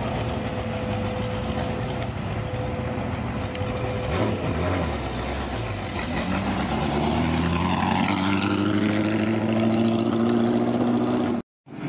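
Ford GT40 replica's V8 idling steadily, then pulling away with its engine note rising gradually over the last several seconds.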